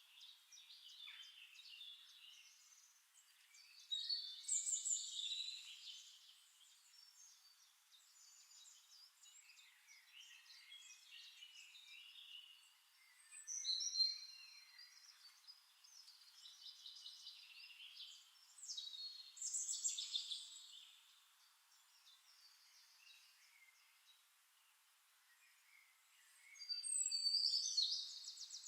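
Songbirds chirping and singing in short high-pitched bursts of song every few seconds, with quieter twittering between them.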